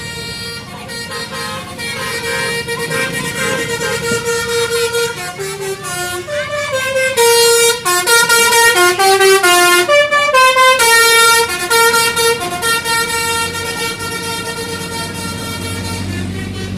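Telolet basuri musical bus horn playing a tune, a run of held notes stepping up and down, loudest midway, over the low hum of a bus engine.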